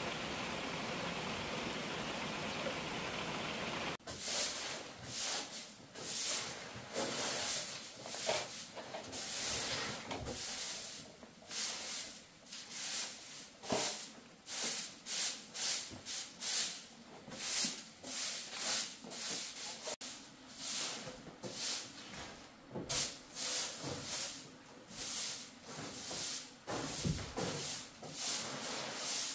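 A broom sweeping a floor or ground with repeated brushing strokes, a little more than one a second. Before the first stroke, about four seconds in, there is a steady hiss.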